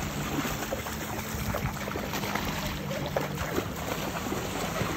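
Small splashes and lapping of shallow seawater as a toddler wades and then paddles, over a steady wash of water and wind. A faint low hum sits underneath for the first two seconds.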